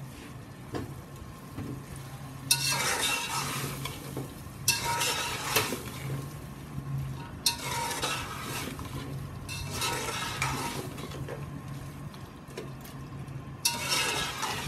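Slotted metal spatula stirring and scraping chickpeas, onions and yogurt masala frying in a metal pot, over a steady sizzle. The scraping strokes come in spells every two to three seconds, starting about two seconds in.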